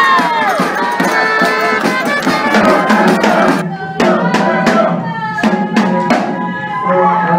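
Brass band with drums playing a lively tune. About three and a half seconds in, it cuts to a crowd of fans shouting and chanting in a stairwell over sharp beats about twice a second.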